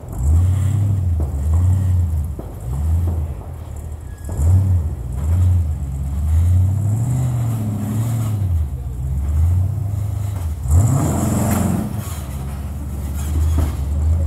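Jeep rock crawler's engine working in low gear over boulders, the revs rising and falling in short pulses of throttle, with a sharp rise in revs and a louder burst about eleven seconds in.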